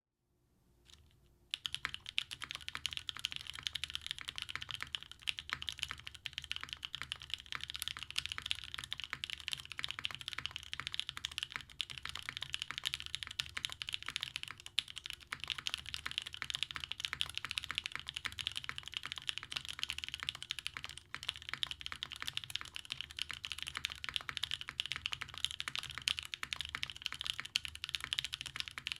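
Continuous fast typing on a Merisi Works Sessantacinque mechanical keyboard with Gateron Cream Soda switches in a carbon fibre plate, no dampening, and GMK keycaps. The keystrokes start about a second and a half in and run as a dense, even clatter.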